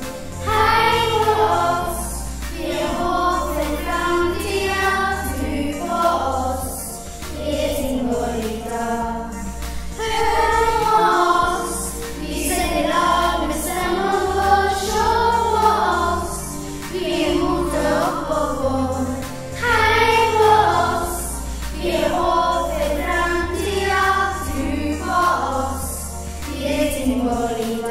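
A choir singing a song in Norwegian over an instrumental backing arrangement, with a bass line moving under it every couple of seconds.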